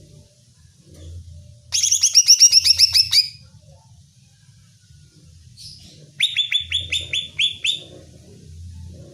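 Green leafbird (cucak ijo) calling: two bursts of rapid, sharp repeated notes, about ten a second, the first starting nearly two seconds in and lasting about a second and a half, the second starting about six seconds in. The calls are the kind used as a lure to rouse a caged cucak ijo into singing back.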